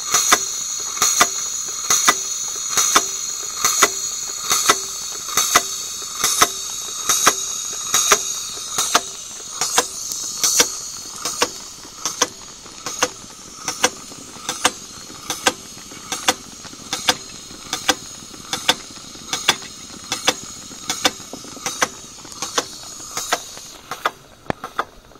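Model steam boiler plant running: a steady high hiss from the burner and steam, loudest in the first ten seconds. Over it come sharp regular clicks, about one a second at first and about two a second from ten seconds on.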